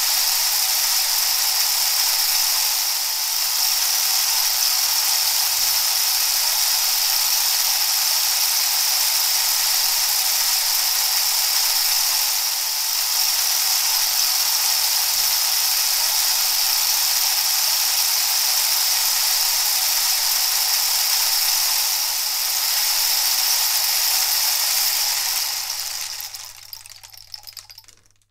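A steady, even shushing hiss with a low hum under it, swelling and easing slightly every nine or ten seconds, then fading out over the last two seconds.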